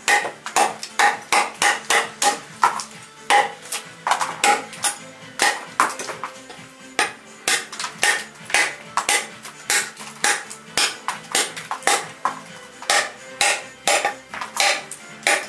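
Large 440C steel fixed-blade knife striking again and again, about two sharp blows a second with a short metallic ring, over background music.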